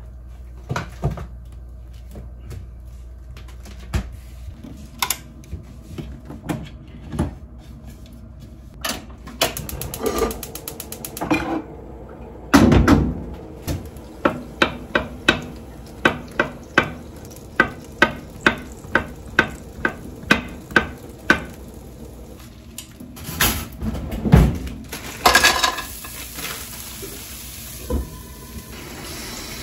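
Kitchen clatter of things being handled and set down, then a kitchen knife slicing mushrooms on a wooden cutting board: a steady run of sharp chops about two a second, starting about halfway through and lasting some seven seconds. Near the end come more knocks and clatter, and then a small knock as a lid is set on the frying pan.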